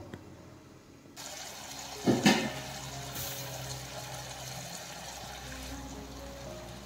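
Chicken masala simmering and sizzling in a pan on a gas stove, a steady watery hiss that starts about a second in, with a sharp knock about two seconds in. Near the end, par-boiled basmati rice is tipped into the pan.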